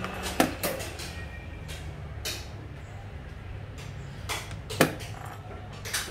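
Sharp clicks of xiangqi pieces being set down on a wooden board and a chess clock button being pressed, the loudest a little under five seconds in. A steady low hum runs underneath.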